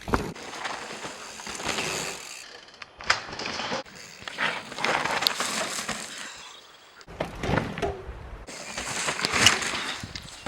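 Mountain bike riding a trail: rolling tyre noise and wind, with sharp clicks and rattles from the bike. The sound stops and restarts abruptly several times, as if short riding clips were cut together.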